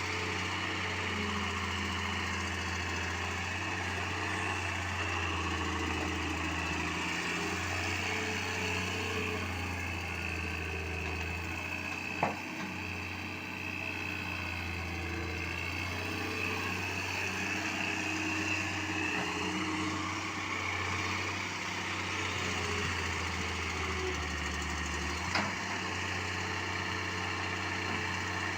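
Heavy construction machine's diesel engine running steadily with a deep hum, with a sharp metallic knock about twelve seconds in and another near the end.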